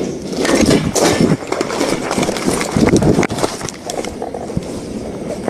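Quick footsteps and the rustle and knock of gear against a body-worn microphone as an officer runs, in an irregular series of thumps.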